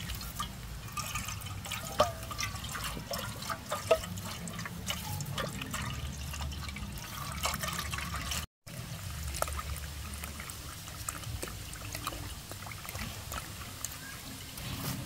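Water pouring in a steady stream from a plastic hose pipe into a metal cooking pot, with a couple of sharp knocks in the first few seconds.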